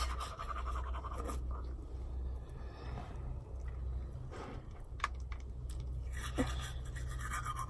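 Faint scratchy scrubbing of teeth being brushed, with a few small clicks, over a steady low hum.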